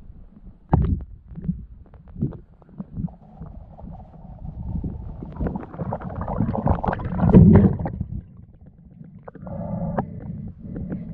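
Muffled underwater sound from a diver's camera: low rumbles and scattered knocks of water and body movement, with a louder rushing stretch about six to eight seconds in.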